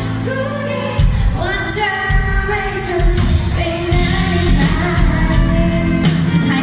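Live band music: a woman singing a pop ballad into the microphone over acoustic guitar and electric bass.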